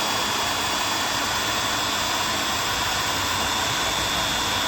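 Small 12-volt DC motors of a homemade lead-screw CNC milling machine running steadily as the Z-axis lowers the milling tool: a continuous whir with a thin high whine held at one pitch.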